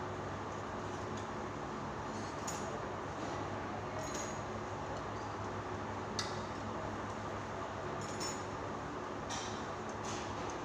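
Scattered sharp metallic clicks and clinks of hand tools and engine parts, a few seconds apart, over a steady background hum.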